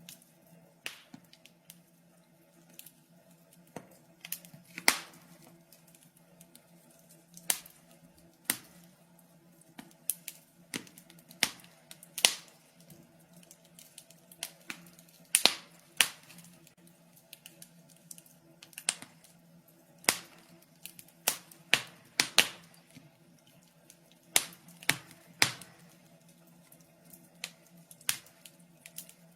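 Wood fire in a fireplace crackling: sharp irregular pops and snaps, several a second at times, over a faint steady low hum.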